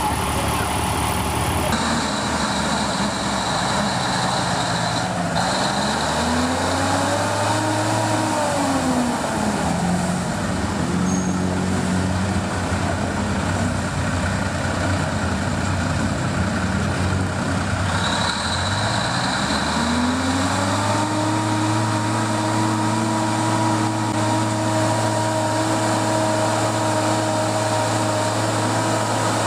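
Old military truck's engine revving under load as it climbs a muddy trail, with tyre and mud noise. The engine pitch rises and falls about a third of the way in, then climbs and holds high and steady for the rest.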